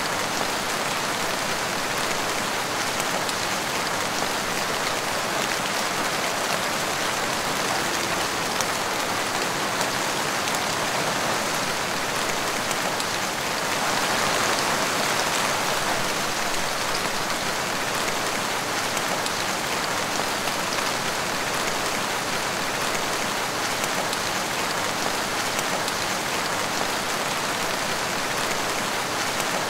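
Steady rain falling and splashing on a wet tiled porch floor, swelling a little for a couple of seconds about halfway through.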